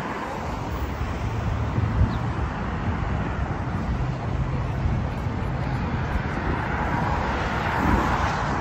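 Steady road traffic, cars driving past on a busy multi-lane boulevard, with a vehicle passing close near the end.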